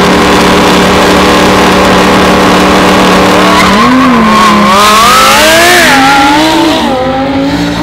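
Loud sports car engine held at steady revs for about three seconds, then revving up and down several times as the car is driven hard.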